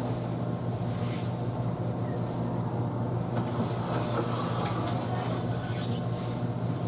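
Steady low mechanical hum, like a running motor or fan, with a few faint light clicks scattered through it.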